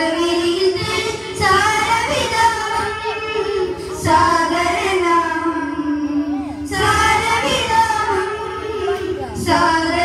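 Boys singing an Islamic devotional song through microphones, in phrases of long held notes that break briefly about every two and a half seconds.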